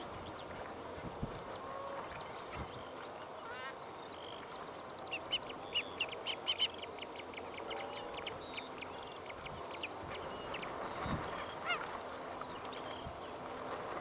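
Flock of banded stilts calling: many short, high calls overlapping one another throughout, with a quick, dense run of calls about five to seven seconds in.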